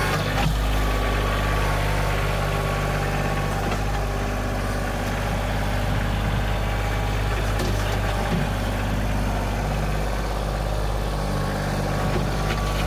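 Kioti compact tractor's diesel engine running steadily while its front loader lifts and curls a stump bucket out of a freshly dug hole.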